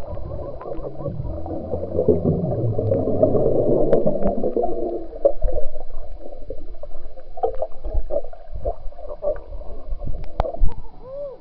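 Muffled churning and bubbling of swimming-pool water heard with the microphone underwater, thickest in the first five seconds, with scattered knocks and a louder thump about ten seconds in.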